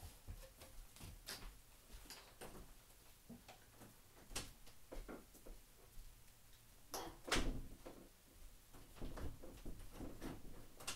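Scattered faint knocks and clicks of things being handled, with one louder knock about seven seconds in.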